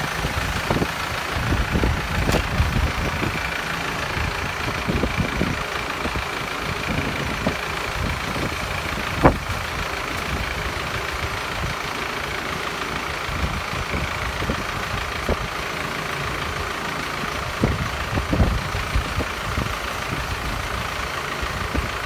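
BULL HD96 backhoe loader's diesel engine idling steadily, with scattered low thumps and one sharp click about nine seconds in.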